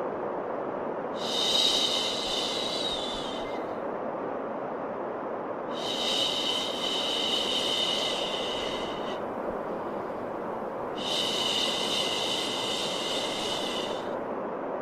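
Steady white noise with a long 'shhh' shushing sound laid over it three times, each about three seconds long and coming roughly every five seconds.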